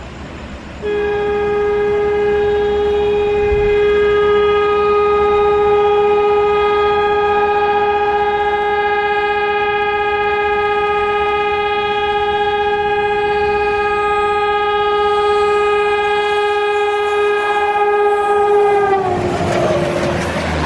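Locomotive horn sounding one long unbroken honk of about eighteen seconds, a steady loud tone that sags in pitch as it cuts off. Then the noise of the express train rushing past.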